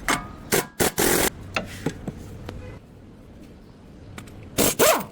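A series of sharp knocks and clatters: several in quick succession, a longer scraping one about a second in, and a loud one near the end.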